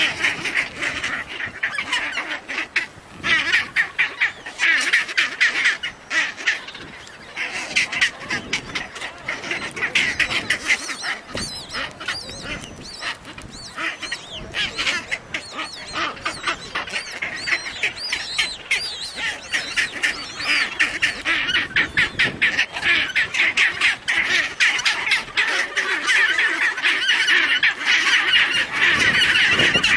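Chinstrap penguin colony calling: many birds at once in rapid, overlapping pulsed calls, growing denser and louder over the last few seconds.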